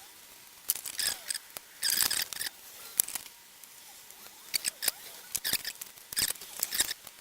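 Cotton buds scrubbing old grease off a small metal shaft: irregular scratchy rubbing strokes and sharp little clicks of handling.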